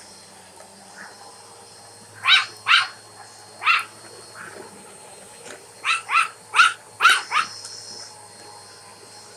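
A domestic cat giving short, sharp calls: three about two seconds in, then a quicker run of five about six to seven seconds in.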